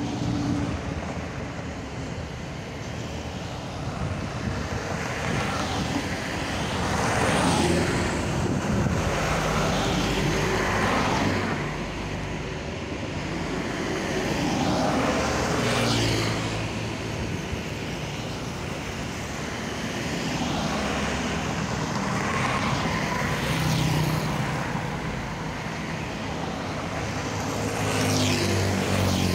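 Road traffic passing close by: trucks, cars and motorcycles going by one after another, each engine swelling and then fading away.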